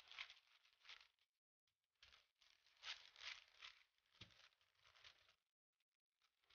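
Faint rustling and crinkling of baking paper as a wooden rolling pin rolls tart dough out between two sheets. It comes in back-and-forth strokes, with a pause after about a second and a short pause near the end.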